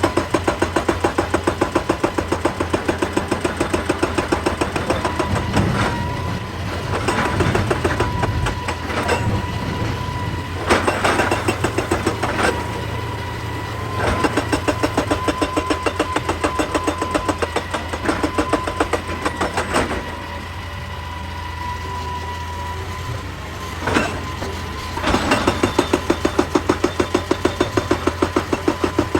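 Excavator-mounted hydraulic rock breaker hammering rock in rapid, even blows, about six a second, over the excavator's steady diesel engine. The hammering stops for a few seconds about twenty seconds in, then starts again.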